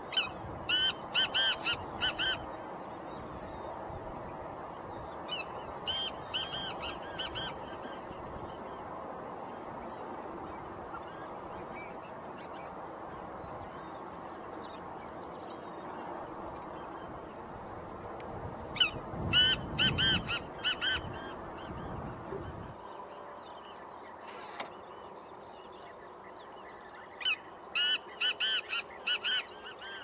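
Black francolin calling: four bouts of its call, each a quick series of five or six short, high notes lasting about two seconds. The first and third bouts are the loudest, with the bouts spaced several seconds apart.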